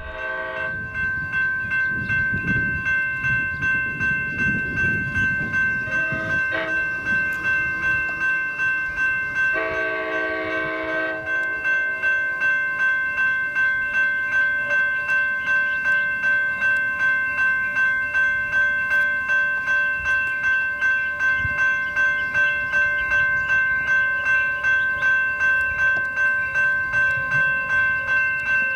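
A railroad warning bell rings steadily at about two strokes a second as an Amtrak California bilevel cab-car train approaches with a low rumble. About ten seconds in, the cab car's horn sounds once for about a second and a half.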